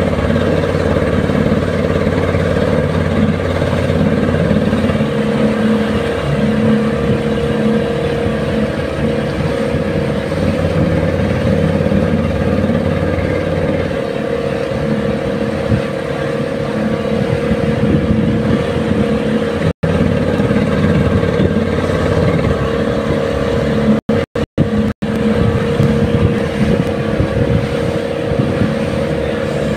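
A small motorboat's engine running steadily at cruising speed, with a few momentary dropouts in the sound about two-thirds of the way through.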